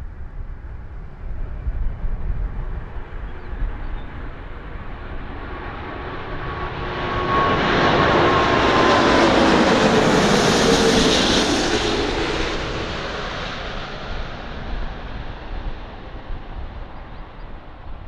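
Jet airliner passing close by. Its engine noise swells to a peak about halfway through and then fades away, with whining tones that slide down in pitch as it goes past.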